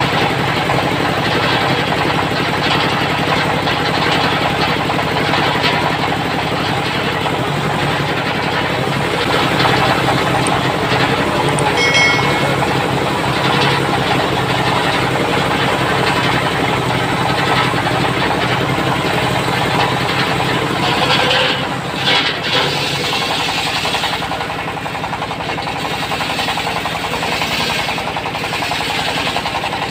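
Stationary single-cylinder diesel engine running steadily with a fast knocking beat, powering a circular sawmill blade that spins with it.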